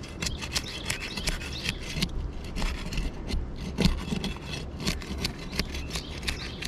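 Asphalt roof shingles being pried up and unsealed from the sealant strip beneath: irregular scraping and rubbing with many short crackles and clicks, loudest a little before four seconds in.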